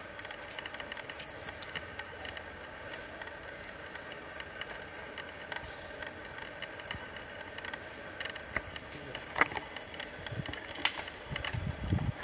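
Quiet outdoor ambience: a steady faint high hum with scattered soft clicks. A few louder clicks and rustles come near the end.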